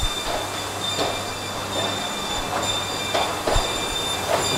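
Machinery running on a laminate flooring production line: a steady low hum under several steady high-pitched whines, with a handful of irregular knocks and clatters.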